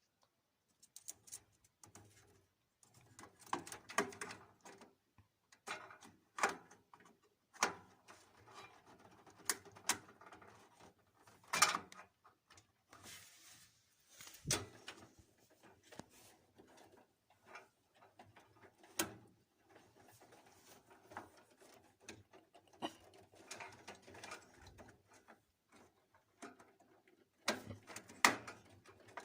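Hands handling desktop PC hardware while fitting RAM: irregular small clicks, knocks and light rustling, with a few sharper clicks standing out, one about 12 seconds in and a couple near the end.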